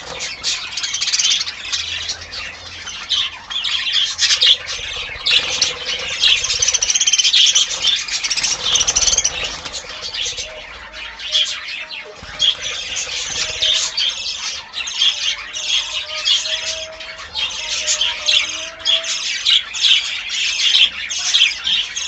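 A flock of budgerigars chattering, many birds calling at once in a continuous mix of short chirps, warbles and squawks.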